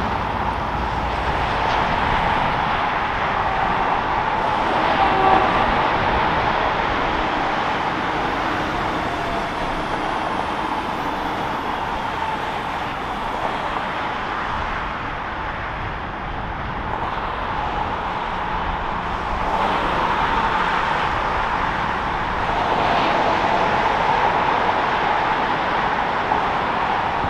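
Steady traffic noise from cars on a multi-lane road, with an REM electric light-metro train (Alstom Metropolis) running on the track beside it.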